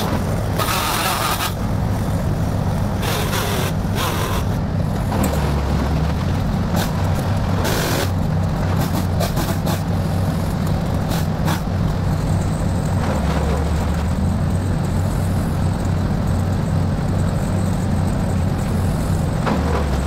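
A heavy engine runs steadily at a low, even pitch, with short crackles scattered over it, more of them in the first half.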